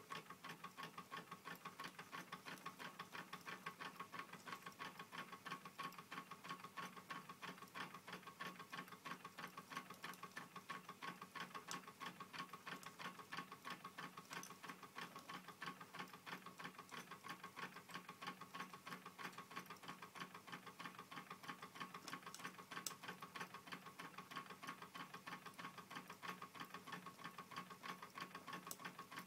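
Homemade horizontal Stirling engine built from aluminum drink cans, with a balloon diaphragm, wire crank linkage and CD flywheel, running steadily with a faint, rapid, even ticking and rattling, several ticks a second.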